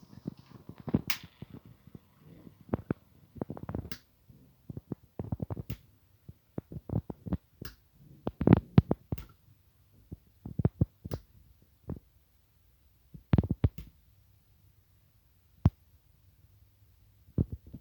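Irregular plastic knocks and clicks from a 3D-printed PLA turntable being handled and turned, coming in uneven clusters of dull thumps and sharper clicks with short pauses.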